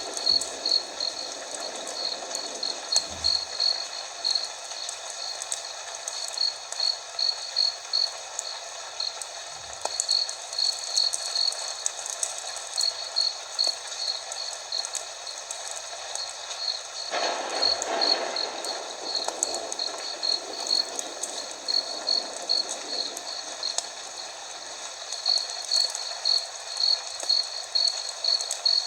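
Fire crackling with a steady hiss of rain, under a high, evenly pulsed chirping that stops and resumes a few times. The rushing grows louder for several seconds a little past the middle.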